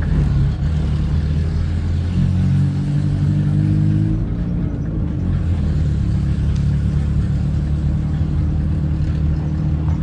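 Volkswagen Saveiro pickup driving, heard as a steady deep rumble with the low bass of its aftermarket car sound system coming through; the low notes shift a couple of times.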